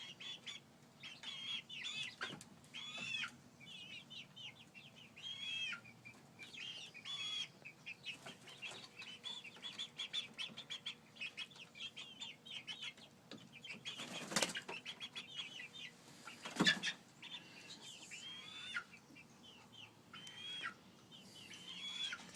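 Young, half-grown chickens peeping and chirping over and over, with wings flapping. Two loud sharp knocks come about two seconds apart a little past the middle.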